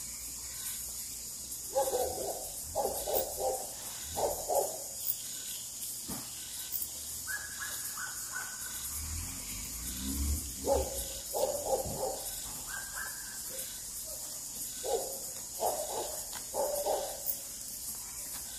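Evening countryside chorus: a steady high insect trill, with three groups of short repeated animal calls breaking through over it.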